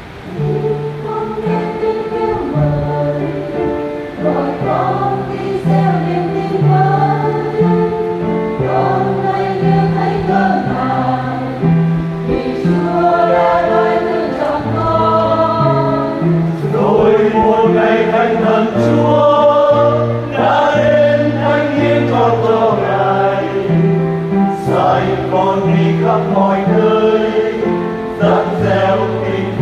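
Church choir singing a Vietnamese Catholic hymn, with a steady line of low bass notes moving beneath the voices.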